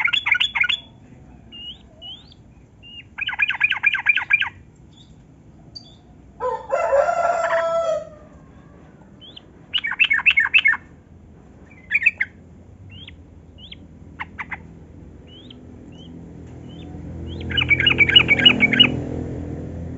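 Yellow-vented bulbul (trucukan) singing in bursts of quick, bubbly chattering notes, about four times, with short rising whistles between them. About seven seconds in comes a louder, harsher call lasting over a second, and a low rumble swells near the end.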